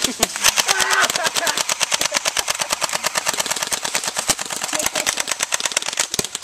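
Rapid automatic fire: an unbroken stream of sharp shots, about ten a second, with a brief voice near the start.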